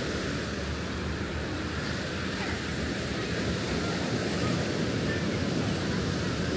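Surf washing onto a sandy beach: a steady rushing noise, with wind rumbling on the microphone.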